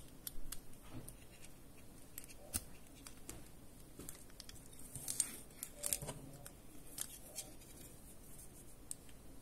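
Small plastic clicks and taps with faint rustling as a USB card reader and a USB plug are handled and fitted together, a few sharper clicks standing out.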